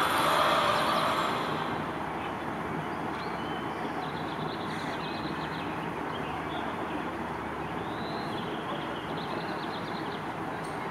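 A car driving off, its sound fading over the first couple of seconds. After that comes a steady outdoor background hiss with a few faint, short high chirps.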